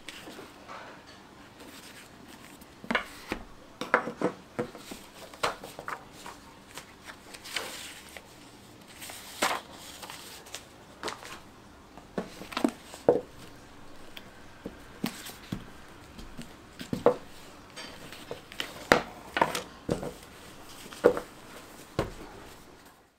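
Irregular knocks and taps as a hardcover book and stacks of folded paper signatures are picked up, set down and squared on a wooden table.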